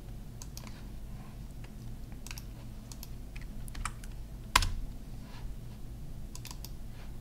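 Computer keyboard being typed on: scattered key presses, with one sharper, louder key strike about four and a half seconds in.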